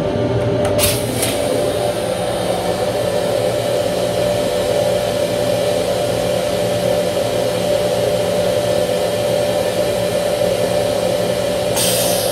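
Steady mechanical hum of an M7 railcar's equipment, heard inside its small restroom, with a constant mid-pitched tone over a lower drone. There is a click about a second in and a short hiss near the end.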